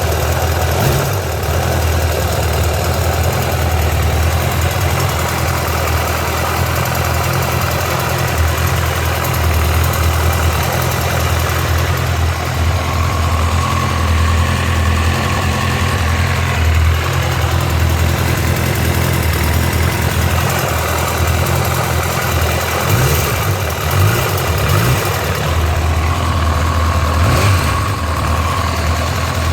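Honda CB1000R's inline-four engine idling steadily.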